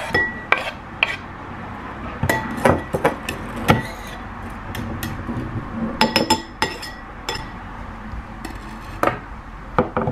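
A knife scraping and tapping on a wooden chopping board and a ceramic bowl as diced tomatoes are scraped into the bowl and stirred: an irregular run of sharp clicks and knocks, some with a short ringing clink.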